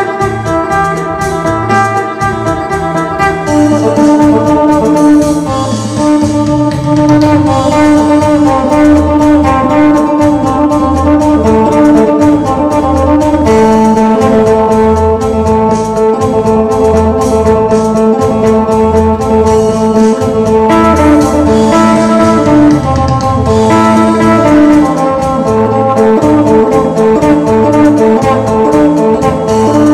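Isan phin, a three-string lute, playing a lively lam phloen melody of long held notes over a steady bass and drum beat.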